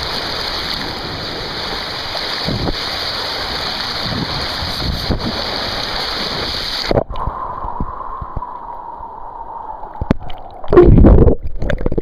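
Pool water churning with air bubbles, heard through a waterproof camcorder held in the water: a loud steady rush that goes suddenly dull and muffled about seven seconds in, with a faint steady hum. Near the end comes a short, loud, low thump.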